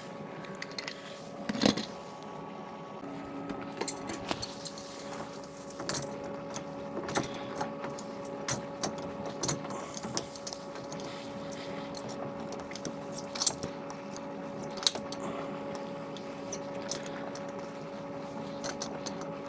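Scattered small metallic clicks and clinks of plumbing fittings and tools being handled, over a steady hum.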